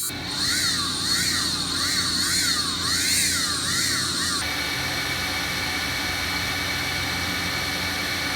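DJI Mavic Air drone's motors whining. The pitch swings up and down about twice a second, then about four and a half seconds in it settles into a steady whine.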